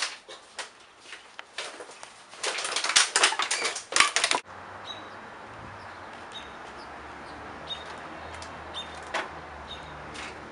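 Black plastic garbage bags stuffed with empty plastic water bottles rustling and crinkling as they are carried, a dense crackle loudest over the second half of it. It cuts off suddenly about four seconds in, giving way to a steady quiet outdoor background with a few faint high chirps.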